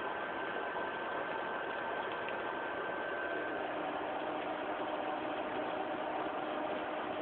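Steady hiss with a faint hum of a few steady tones. A high tone drops out about halfway through and lower tones come in.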